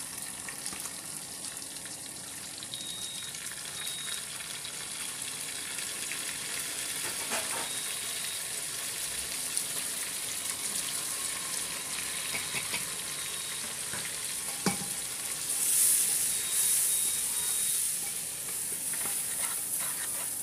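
Tomatoes, spices and onions sizzling in hot oil in an aluminium pressure cooker, stirred with a wooden spatula. The sizzle swells louder about three-quarters of the way through, just after a single sharp knock.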